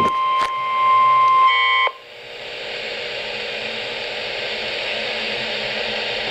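NOAA Weather Radio's steady 1050 Hz warning alarm tone, with a couple of clicks near the start, cutting off about two seconds in. A steady radio static hiss follows.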